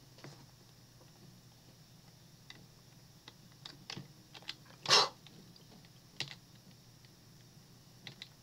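Soft, scattered clicks of a computer keyboard and mouse being worked, irregular and a second or so apart. About five seconds in there is one louder, slightly longer noise.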